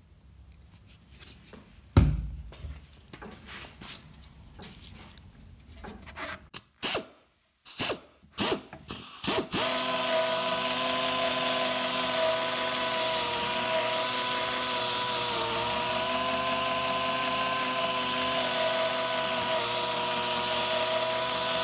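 Harbor Freight pneumatic air polisher with a foam pad buffing compound into a plastic case: a knock and some handling, a few short bursts, then from about ten seconds in it runs steadily on low speed, a whirring tone over a loud air hiss.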